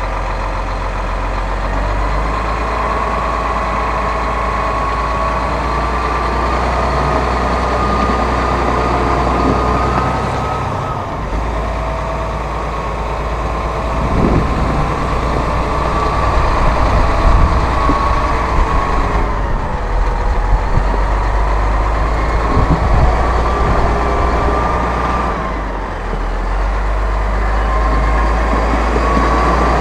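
Massey Ferguson 7624 tractor's AGCO Power 7.4-litre diesel engine running as the tractor drives around, with a thin whine that slowly rises and falls in pitch. It gets louder and rougher about halfway through as the tractor passes close by.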